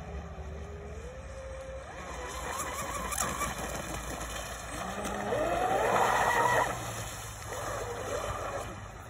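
Pro Boat Blackjack 29 RC catamaran on 6S power, its electric motor whining as it runs across the water. The whine wavers in pitch, then rises sharply about five seconds in and is loudest for a second or so before falling away.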